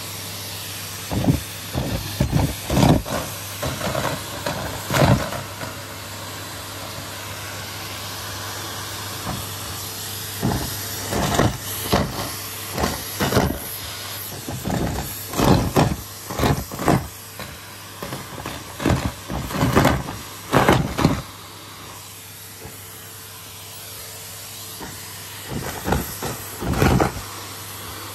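Vacuum cleaner running with a steady hiss and low hum, broken by many irregular short loud noises as the nozzle picks things up or knocks against them, in clusters with a calmer stretch near the end.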